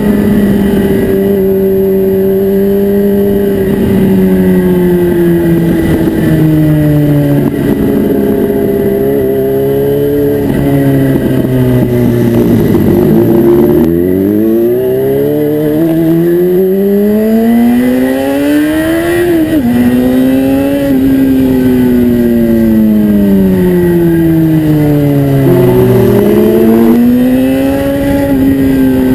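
Yamaha FZ6's inline-four engine running through an Atalla aftermarket exhaust. Engine speed swings up and down, with sudden jumps in pitch like gear changes, including a sharp drop after a long rise about two-thirds through.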